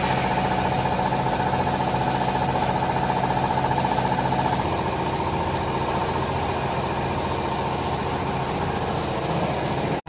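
Hydraulic power unit of a vertical clothes baler running with a steady hum, its tone shifting slightly about halfway through.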